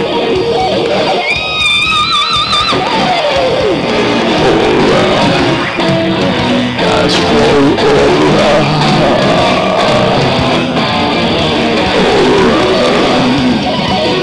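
Loud rock music with guitar, with a wavering high note about two seconds in.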